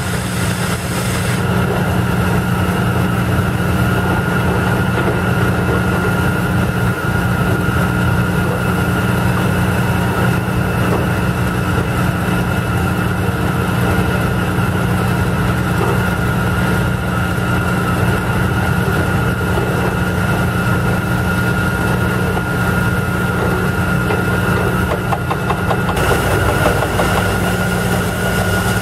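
Airmobil 432 pneumatic drilling rig at work, a steady mechanical drone with a constant high whine over it. It grows a little brighter about 26 seconds in.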